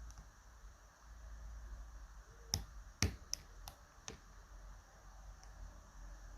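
About six sharp metallic clicks at uneven intervals, the loudest about three seconds in, from lock-picking tools working in a TESA T-12 dimple lock.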